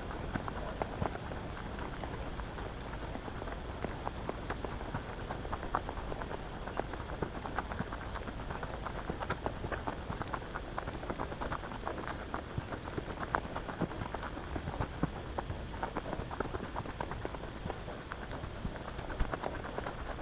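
Footsteps crunching over dry bush ground: a dense, irregular crackle of small snaps and clicks that keeps going as the walk continues.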